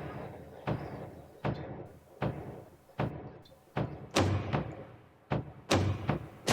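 Music: a slow, regular run of deep drum hits, each ringing out before the next, building toward a fuller track.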